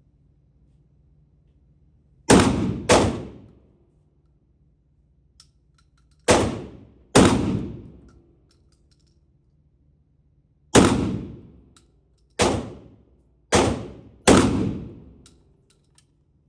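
Eight 12-gauge shotgun slug shots in uneven groups: two close together, two more a few seconds later, then four, each shot ringing out in a short decaying echo.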